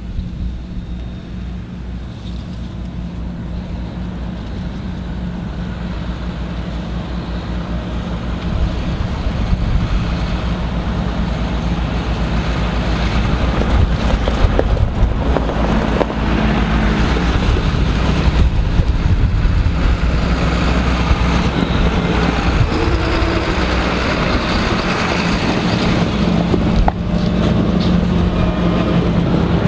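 Diesel engines of a John Deere tractor and combine harvesters driving slowly past, a steady low rumble that grows louder over the first ten seconds as they come close.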